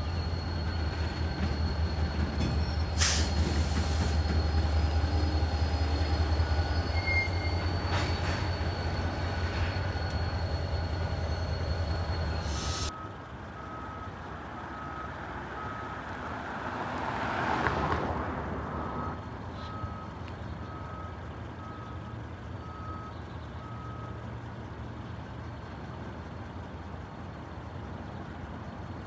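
SD40-2 diesel-electric locomotive's engine running with a steady low rumble, with two sharp clicks. After a sudden cut, a car passes close by about halfway through, and a faint beep repeats evenly for about ten seconds.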